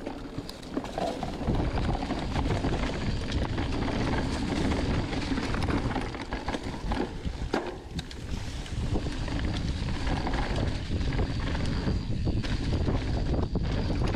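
Mountain bike coasting down a dirt trail with its chain off. Wind rushes over the microphone and the tyres roll over dirt and roots with scattered knocks and rattles. The noise grows louder about a second and a half in.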